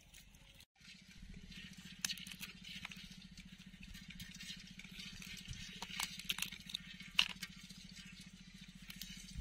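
Small pond crabs being broken apart by hand: scattered crackles and sharp snaps of shell. A steady low hum starts about a second in and runs beneath it.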